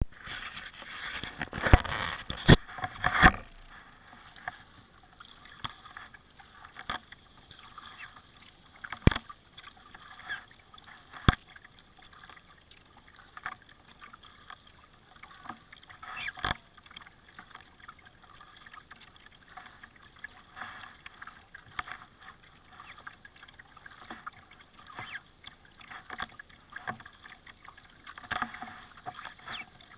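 Kayak paddling: paddle strokes splashing and dripping water, with sharp knocks here and there, the loudest cluster of them in the first few seconds.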